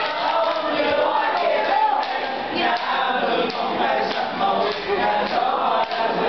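A group of voices singing together in chorus, steady and unbroken throughout.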